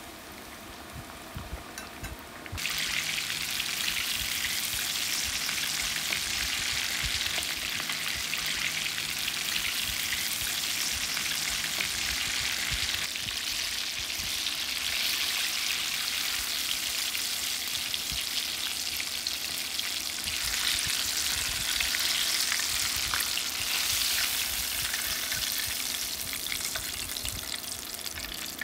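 Flour-coated chicken thighs deep-frying in hot oil: a steady, dense sizzle and crackle that starts abruptly about two and a half seconds in.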